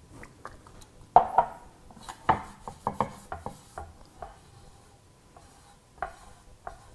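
Irregular knocks and clicks of a metal can and a car's oil pan being handled on a wooden workbench, with a rag rubbing over the pan to wipe off cleaner residue. The sharpest knock comes a little after a second in.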